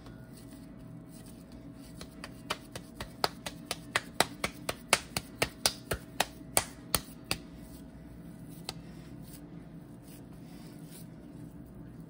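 A quick run of about twenty sharp clicks, roughly four a second, starting about two seconds in and stopping after about five seconds, over a faint steady hum.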